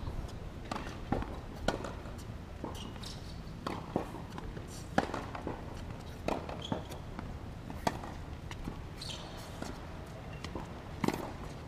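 Tennis rally on a hard court: sharp pops of the ball off the rackets and bounces on the court, coming every second or so, with footsteps and a few short high shoe squeaks.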